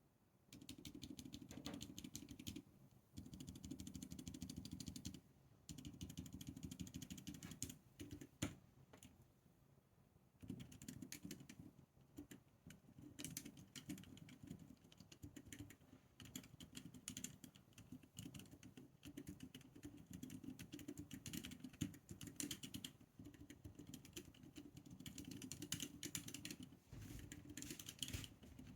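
Typing on a mechanical keyboard fitted with FEKER Aphonia Silent Pink silent switches: quiet, dampened keystrokes in fast runs, with a pause of a couple of seconds about a third of the way in.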